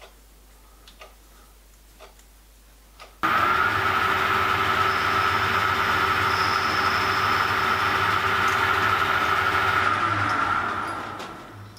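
A few light clicks as the MDF discs are handled on the mandrel. Then a small metal lathe starts abruptly about three seconds in and runs at a steady speed while a tool cuts the spinning MDF discs. The lathe winds down and fades out near the end.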